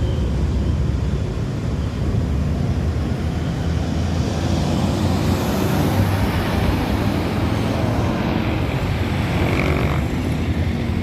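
Road traffic: a large intercity bus passing close by, its engine and tyres over a steady low rumble of other vehicles, the noise swelling about halfway through.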